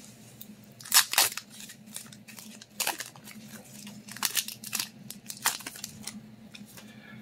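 Foil wrapper of a Pokémon card booster pack crinkling and tearing open, in a string of short, sharp crackles. The loudest come about a second in.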